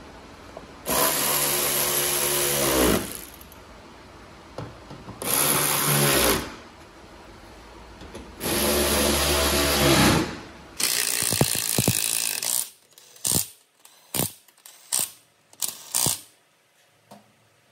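Cordless power tools running in bursts. First come three runs of one to two seconds on bolts inside the wheel arch, each with a motor whine that falls away as it stops. Then a cordless impact wrench gives a string of short, quick bursts as it runs the wheel bolts on.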